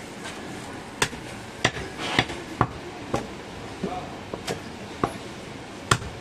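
Butcher's knife chopping and knocking goat meat against a wooden chopping block: about eight sharp, irregular chops, the loudest about a second in and near the end.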